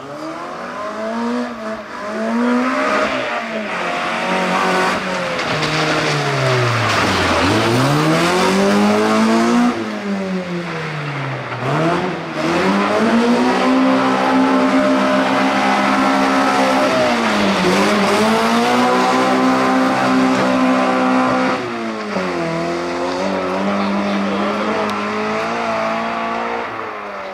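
Rally car engines running hard on a stage, revving high, falling steeply in pitch three times as they slow for corners or pass, then climbing back up under acceleration.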